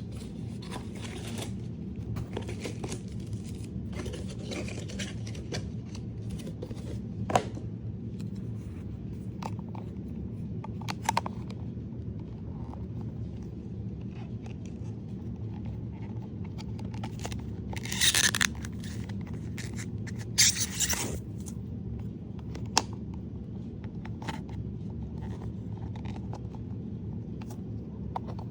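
Figurine blind-box packaging being handled and opened: scattered crinkles, scrapes and tearing of packaging, with two louder rustling tears about two-thirds of the way through.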